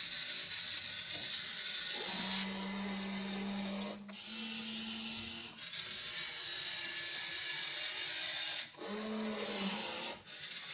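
Wltoys RC excavator's small electric gear motors whirring, with a steady lower whine cutting in for a second or two at a time as different movements run, and brief pauses between movements.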